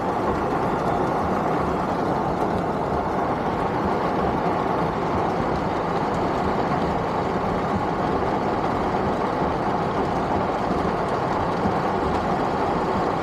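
Heavy rain falling on a car's roof and windscreen, heard from inside the cabin as a steady, even noise.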